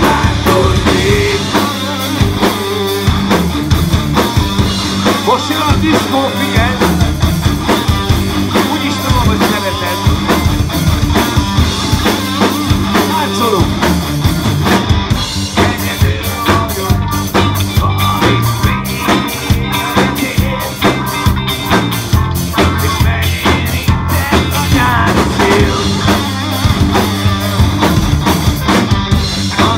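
Live rock band playing, with the drum kit to the fore over electric bass and electric guitar, keeping a steady beat.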